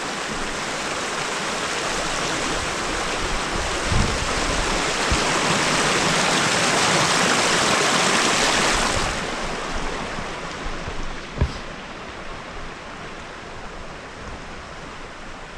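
Mountain creek rushing and cascading over rocks, a dense steady rush that grows louder toward the middle and then eases off. A few dull thumps sound over it, the sharpest about eleven seconds in.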